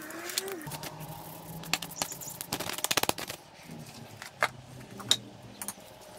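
Workshop handling noises: scattered knocks and clicks, with a quick run of rapid clicks about two and a half seconds in, over a faint steady hum.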